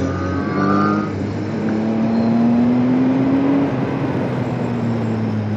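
Motorcycle engine running at cruising speed under a steady rush of wind and road noise; its pitch climbs gently for a couple of seconds, then eases back.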